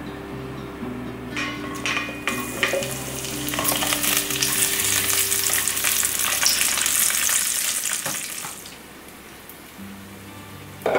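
Ginger slices and garlic cloves sizzling in sesame oil in an enamelled Staub cast iron pot, stirred with a spatula, with light scrapes and clicks. The sizzling starts about a second and a half in and stops suddenly about three-quarters of the way through.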